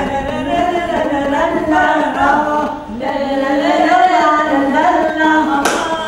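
A small group of women singing a song together without accompaniment. A brief hiss cuts in near the end.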